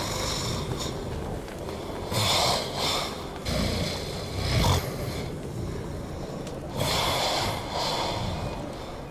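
A person snoring loudly in their sleep, with rough snoring breaths coming every few seconds.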